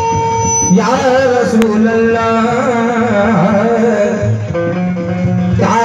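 Qawwali singing: a man's voice sings long, wavering held lines over a steady sustained drone, after a single held note in the first second.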